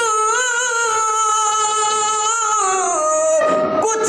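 A man singing a naat, Islamic devotional song, holding one long, slightly wavering note that slides down in pitch about three seconds in. After a brief break the voice comes back in just before the end.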